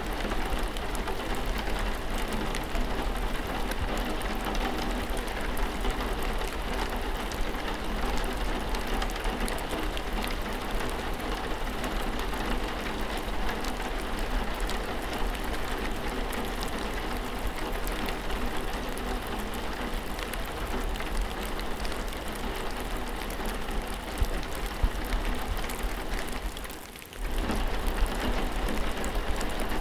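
Steady rain: a dense hiss of rainfall with many individual drops ticking. The sound briefly drops away for a moment about 27 seconds in, then resumes.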